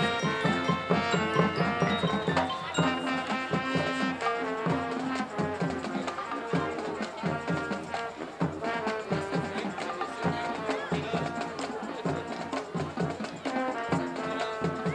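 High school marching band playing its field show: sustained brass and wind chords over a steady beat of marching drums, with mallet and other front-ensemble percussion.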